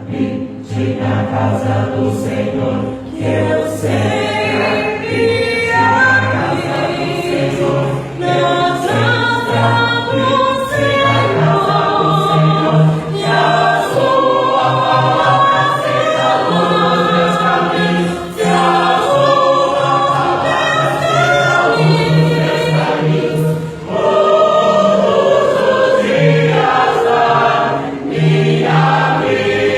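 A choir singing a gospel song in several voice parts, over held low bass notes.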